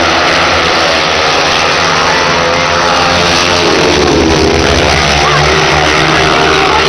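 Several speedway bikes' 500cc single-cylinder methanol engines racing together round the track in a loud, continuous drone. The pitch dips and rises again around the middle as the pack sweeps through the bend.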